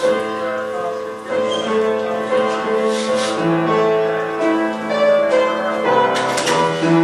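Background music led by piano, held notes moving in a slow line. A brief noisy burst cuts across it about six seconds in.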